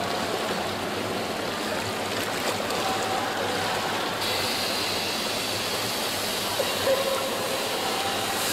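Swimming pool water splashing and sloshing steadily as a child swims; the splashing turns brighter and hissier about halfway through, when she is swimming along the pool edge.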